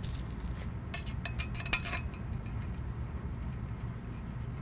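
Small steel mounting bolts clinking against each other and against a steel linear guide rail as they are set into its holes by hand and finger-tightened. A few light metallic clicks come right at the start, then a quick cluster of them between about one and two seconds in, over a low steady hum.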